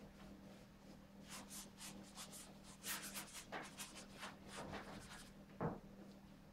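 Faint scratchy strokes of a paintbrush dragged and dabbed across a stretched canvas, several quick strokes a second for about four seconds, then a single knock near the end, the loudest sound.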